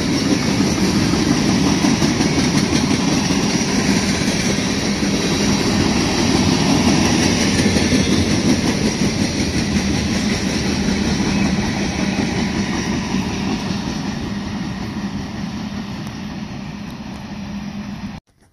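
Freight train cars rolling past, a steady rumble of steel wheels on the rails that fades in the second half as the train moves away, then cuts off abruptly near the end.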